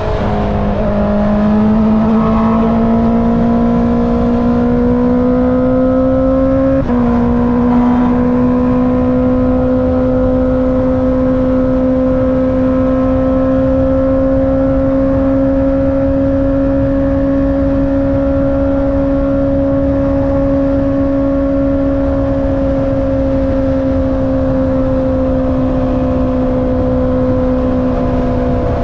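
Honda CB650R inline-four with an Akrapovic exhaust running under load at speed. The engine note climbs slowly, dips sharply once about seven seconds in as if on a gearshift, then holds steady and eases slightly near the end, with rushing wind underneath.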